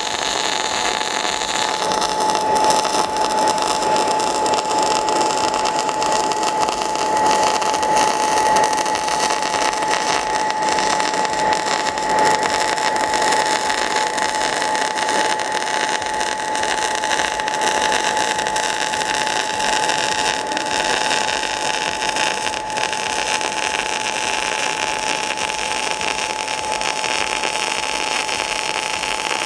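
Semiautomatic MIG welding arc running at high current and voltage, a steady even hiss without breaks, over a steady high whine.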